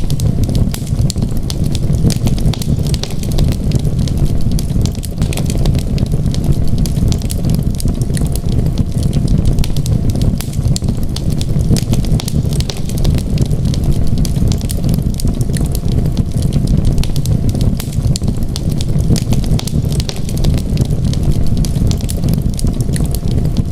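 Wood fire crackling in a fireplace: many small snaps and pops over a steady low rumble of the flames.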